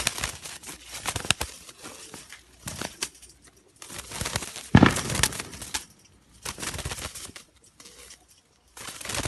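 Pigeons flapping their wings in repeated short, noisy flurries with pauses between, the loudest about five seconds in.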